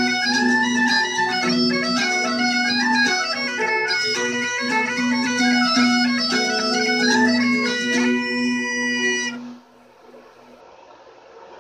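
Bagpipe music: a moving melody over steady drones, ending on a held note about nine seconds in. After that there is only a faint steady hiss.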